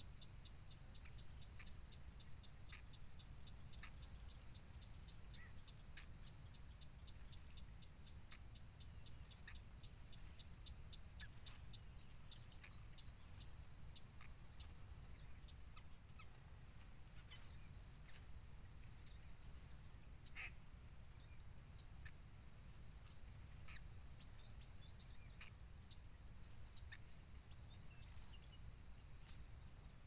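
A steady, high-pitched insect drone, with many quick, high, falling bird chirps scattered over it and a low rumble underneath.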